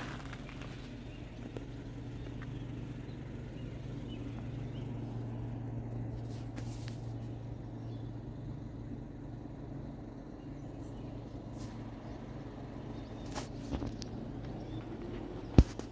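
An engine running steadily with a low hum, its pitch rising over the last few seconds, and a single sharp click shortly before the end.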